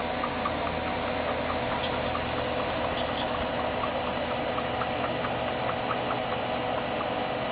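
A sleeping Persian cat making a series of small, irregular clicks in her breathing, a few a second, which is not snoring. It is faint under the steady hum of computer fans. The owner cannot rule out that it is the sign of a health problem, in a breed prone to breathing trouble.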